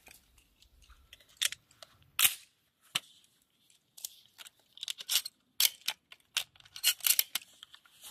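Sharp metallic clicks and clacks from a Hunt MX4 Tactical semi-automatic shotgun, a Benelli M4 clone, as its action is worked by hand to clear the chamber. About a dozen scattered clicks, the loudest one about two seconds in.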